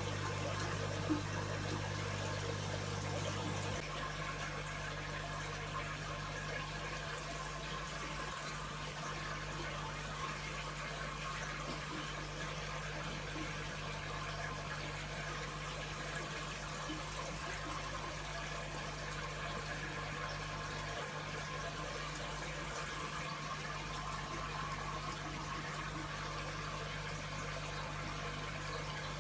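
Aquarium filter equipment running: a steady low hum under a constant watery trickle and hiss. A second, lower hum drops away about four seconds in.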